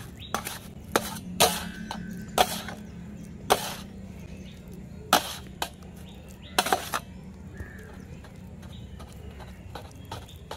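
Flat metal spatula knocking and scraping on a stainless steel plate while mashing boiled banana: about ten sharp, irregular clinks in the first seven seconds, then only light ticks.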